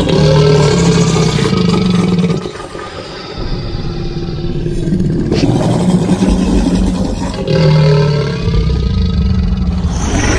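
Made-up monster calls layered from animal and dinosaur sound effects: deep, drawn-out growls, about three in a row, with a short lull near the start and a sharp click midway.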